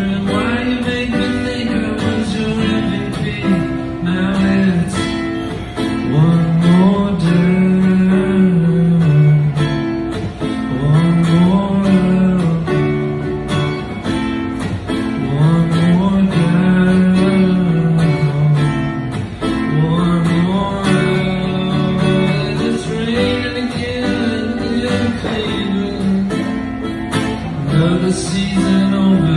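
A recorded song demo led by acoustic guitar, with other instruments playing along.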